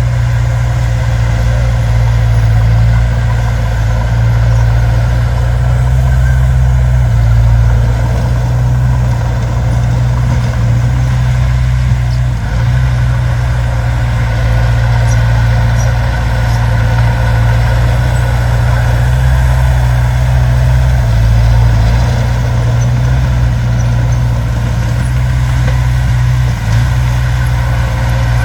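Heavy diesel engine of earthmoving machinery running steadily with a deep, continuous drone, its engine note shifting slightly a few times.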